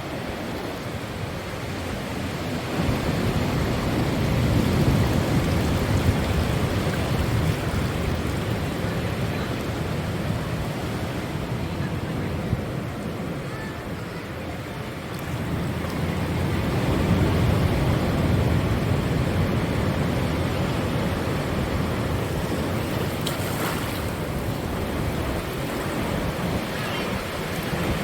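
Ocean surf washing against a rocky shore, a steady wash that swells twice as waves come in and ease off.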